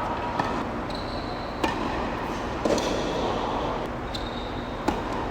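Tennis balls struck by racquets in a rally: four sharp pops about a second or more apart, with two short high squeaks in between, over a steady hum of background noise.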